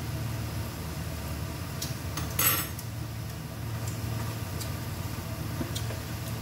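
A silicone spatula stirring minced beef in a frying pan, with one short utensil clatter about two and a half seconds in and a few light clicks, over a steady low hum.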